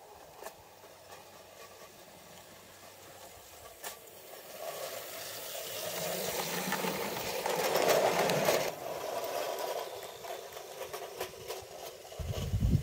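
An Ace Trains O gauge Pannier Tank model locomotive and its coaches running on garden-railway track. The whirr of the electric motor and the rattle of wheels on rail swell as the train passes close, loudest about eight seconds in, then fade. A low rumble starts near the end.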